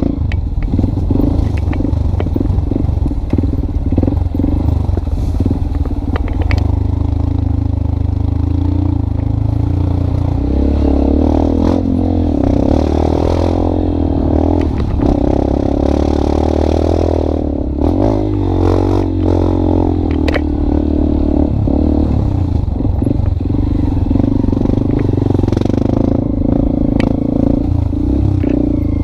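An engine running continuously, its pitch rising and falling a little, with rattling and clatter over it.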